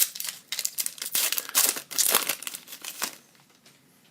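Hockey card pack wrapper being torn open and crinkled by hand, a dense crackling rustle that stops about three seconds in.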